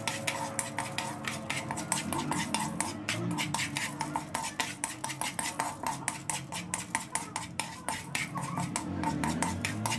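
Metal spoon stirring and scraping raw popcorn kernels in oil and salt around a wok, the kernels rattling and the spoon clicking against the pan several times a second. The kernels are not yet popping.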